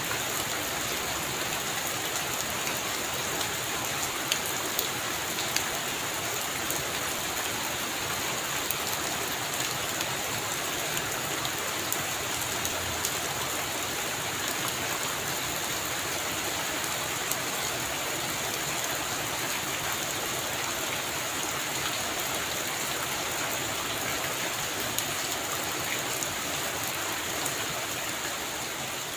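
Heavy rain falling steadily, a dense even hiss with many individual drops pattering and clicking close by.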